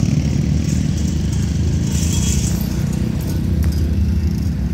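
Steady low engine rumble of an approaching Hitachi diesel-electric locomotive.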